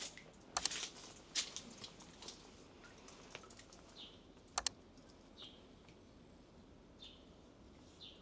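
A few sharp clicks, the loudest in two close pairs, one about half a second in and one about four and a half seconds in, over a quiet background with faint short bird chirps repeating every second or so.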